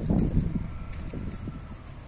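Wind buffeting the microphone in irregular low gusts, strongest in the first half second and easing after.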